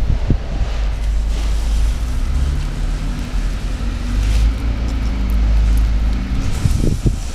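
A motor vehicle engine running steadily over a heavy low rumble, with a few short thumps near the end.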